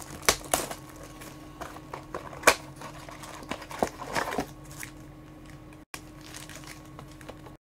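Cardboard trading-card boxes and foil card packs being handled and unpacked: scattered taps and knocks, the loudest about two and a half seconds in, and a short crinkle of wrapping around four seconds, over a faint steady hum.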